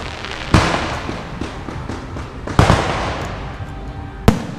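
Aerial fireworks going off: three loud bangs about two seconds apart, each followed by a fading crackle.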